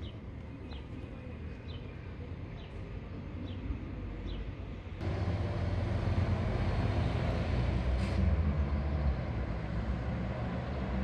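A bird repeating a short high chirp about once a second over faint background. About five seconds in, a cut brings in the louder, steady rumble of road traffic, with cars passing on a city street.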